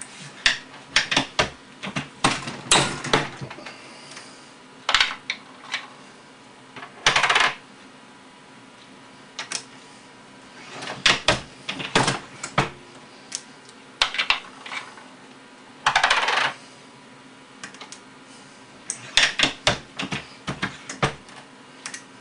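Brass rifle cases clinking and clicking as they are handled and run through a single-stage reloading press to be neck-sized in a Hornady die. Sharp metallic clicks come in irregular clusters, with a few longer scraping sounds of about half a second.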